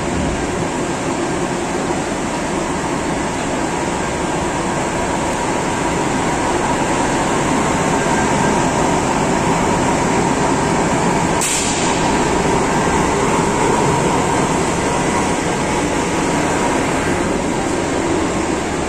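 Belt-driven centrifugal fan of a bag-filter dust-collection system running steadily, its electric motor and the air rushing through the ducting making a loud, even roar. About eleven and a half seconds in, a short sharp hiss cuts through.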